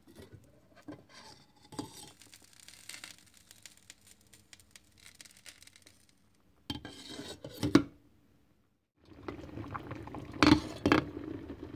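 Glass pot lid clinking and knocking against a stainless steel pot of potatoes, with a few sharp clinks in the second half and a soft wash of water noise between them.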